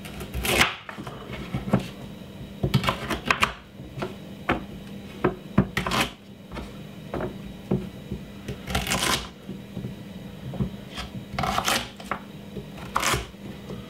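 Kitchen knife cutting carrots and garlic on a wooden chopping board: irregular knocks of the blade on the board, with a few longer slicing sounds as it goes through the carrot.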